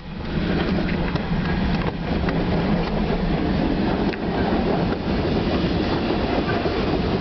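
CN freight train's cars rolling past close by: a steady, loud rumble of steel wheels on rail with a few clacks.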